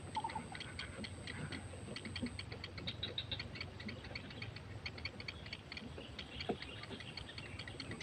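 Heron nestlings begging in the nest: a rapid, dry ticking of about seven clicks a second, with a thin steady high whine in the background for the first couple of seconds.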